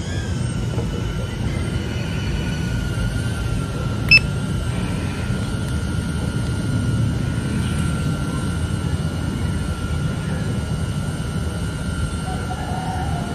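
DJI Avata FPV drone's propellers whining steadily in flight, the pitch easing down slightly in the first second or so, over a low rumble of wind and propwash. A single short electronic beep sounds about four seconds in.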